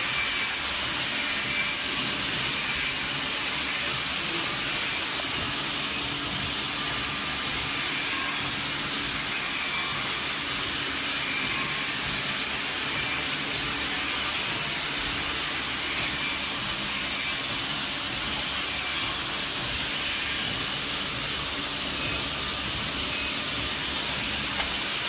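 Snack packing machinery running on a factory floor: a steady mechanical hiss with a low hum and faint clicks repeating every second or so.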